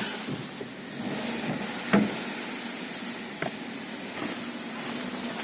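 Hyundai Solaris with its engine running, heard from inside the cabin as a steady hiss, with a sharp knock about two seconds in and a lighter one a second and a half later.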